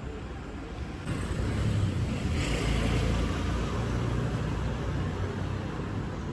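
A car drives past close by: its engine rumble and tyre noise swell about a second in, peak around two to three seconds in, then ease off as it moves away up the street.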